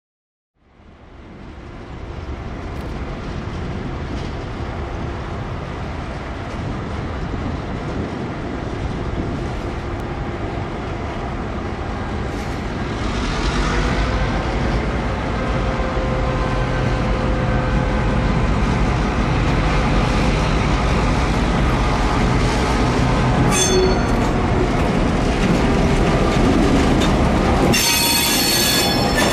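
Two vintage Victorian Railways diesel-electric locomotives, X class X31 and T class T378, running as they draw a passenger train closer, the engine noise growing louder. A short high metallic squeal from the running gear comes about three-quarters of the way in, and a sustained one near the end.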